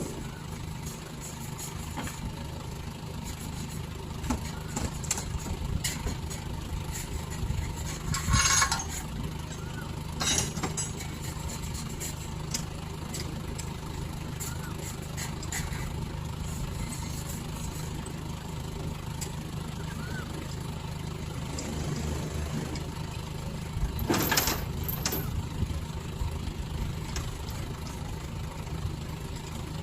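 Crane lorry's engine running steadily, with short hissing bursts about eight, ten and twenty-four seconds in.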